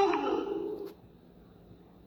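Made-up Citipati dinosaur call sound effect: the end of a pitched animal-like call that drops in pitch and fades out within the first second.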